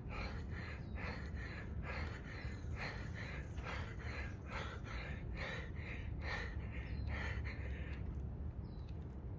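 Fast, rhythmic panting, about two to three breaths a second, which stops about eight seconds in.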